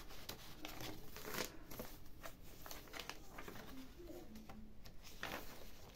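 Soft rustling and crinkling of paper as the pages of a handmade junk journal are handled and turned, with a few light scrapes and taps of paper.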